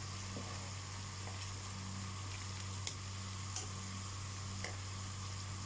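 Oil sizzling steadily as potato slices deep-fry in a pan, with a wire spider skimmer clicking against the pan a few times as it stirs.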